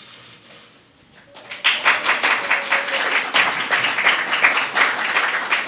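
Audience applauding: many people clapping, starting after a short lull about a second and a half in and going on steadily.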